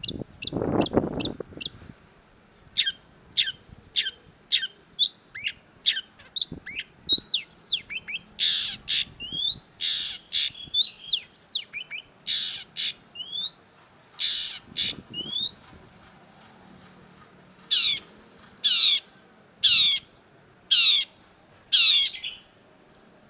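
Long-tailed shrike (cendet) calling: a rapid run of sharp, high notes sweeping downward, mixed with harsh rasping calls. After a short pause about two-thirds of the way through, it gives five harsh calls about a second apart. A low muffled sound sits under the first two seconds.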